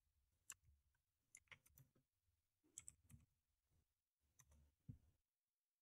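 Faint, irregular clicks of computer keyboard keys being typed, about eight keystrokes spread over four or five seconds, over a faint low hum.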